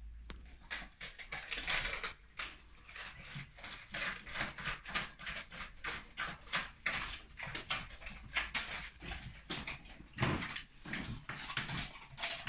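Irish Wolfhounds licking soft-serve ice cream from a cone: quick, irregular wet lapping and smacking, several licks a second.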